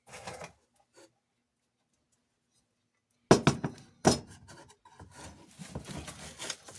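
Tools and a plastic sheet being handled on a workbench: a short rustle and a click, a pause, then two sharp knocks about a second apart followed by steady rustling and scraping.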